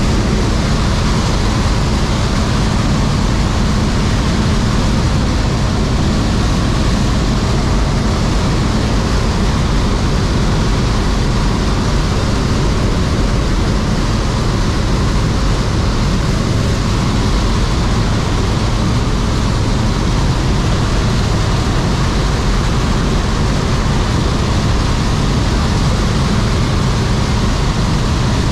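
Steady, loud drone of a small jump plane's engine and propeller, heard inside its cabin in flight, with a constant hiss of air over the airframe.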